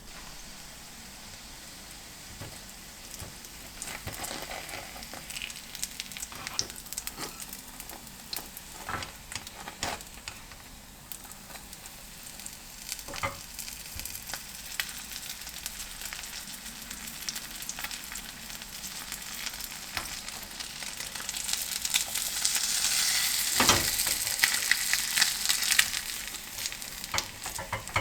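Food sizzling in a hot frying pan, with scattered clicks and taps from stirring or turning it. The sizzle grows louder for a few seconds near the end, then settles back.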